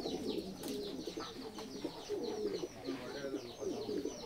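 A loft of white Masakali fantail pigeons cooing, many calls overlapping in a continuous low chorus. Above it runs a steady stream of short, high, falling chirps from small birds.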